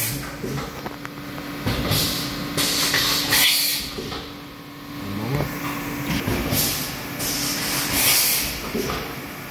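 Chiron dual-head CNC machining centre running its tool changes: repeated short hissing blasts over a steady hum, with brief rising whines as the spindles speed up. The hum stops near the end.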